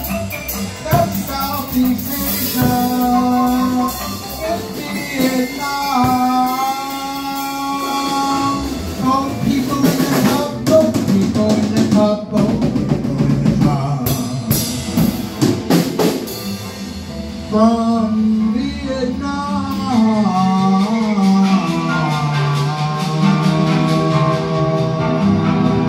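Live band music: a singer's voice through a microphone and PA over a drum kit and electronic instruments. About two-thirds of the way through, the drum hits die away and sustained low electronic tones carry on under the singing.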